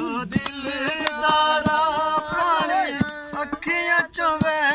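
A man singing a Punjabi folk song in long, wavering held notes, accompanied by hands drumming on an upturned metal cooking pot, several sharp strikes a second.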